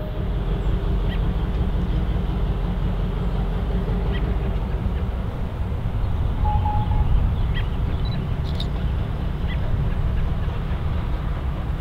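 Steady low rumble of a train running past, with a few faint scattered clicks.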